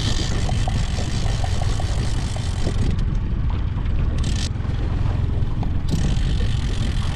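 Small outboard motor on a 12-foot aluminum boat running steadily at trolling speed, a low, even hum.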